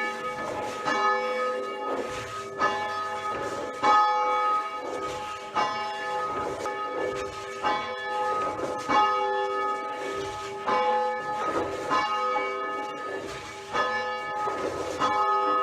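Church bells ringing, several bells struck one after another, about one to two strikes a second, with the tones overlapping and ringing on; the ringing cuts off suddenly at the end.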